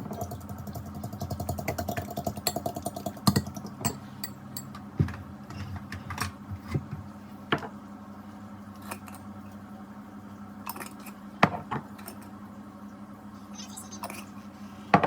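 Eggs being beaten in a bowl, a fast even clicking for about three seconds, then scattered clinks and knocks of dishes and utensils over a steady low hum.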